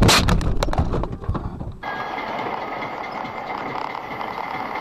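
A car crash heard from inside the car: a loud impact followed by a rapid run of knocks and clatter for about a second and a half. It then switches abruptly to steady driving noise inside a moving vehicle.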